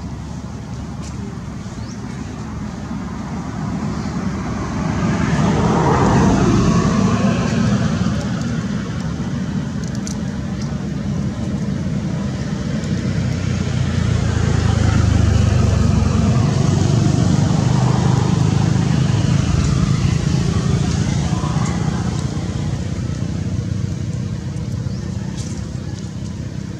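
Road traffic: vehicles passing, a low rumble that swells and fades twice, with faint voices underneath.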